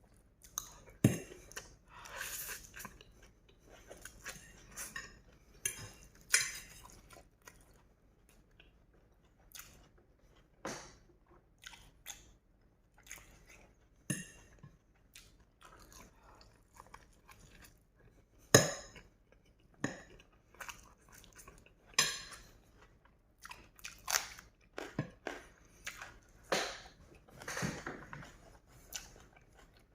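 A person eating noodles close to the microphone: chewing and biting, with irregular wet mouth clicks and smacks scattered throughout.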